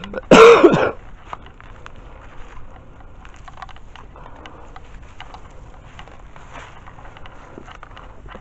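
Footsteps crunching and rustling through dry leaves and brush, with many small scattered snaps. About half a second in comes one short loud burst, the loudest sound.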